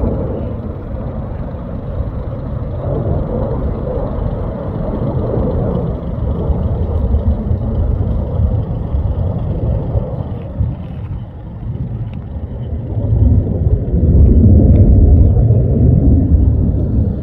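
Fighter jet flying past, a loud low jet-engine rumble that swells louder near the end.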